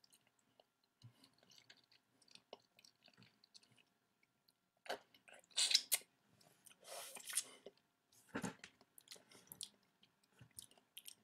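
A person biting and chewing on a fresh lemon wedge: soft mouth clicks at first, then a few louder bursts of noise between about five and nine seconds in.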